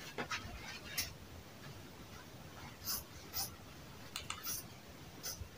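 A few brief, light rustles and scrapes of cut denim pieces being handled, spaced irregularly over a few seconds.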